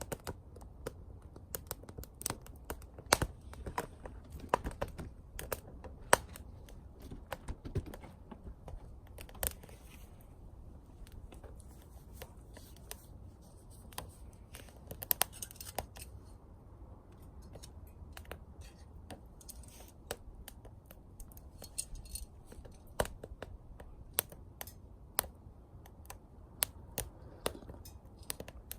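Wood burning in a small camp wood stove, crackling with irregular sharp pops and snaps over a low steady rush.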